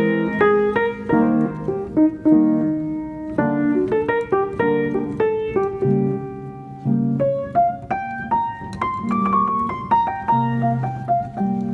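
Background piano music: a gentle run of single notes over held chords.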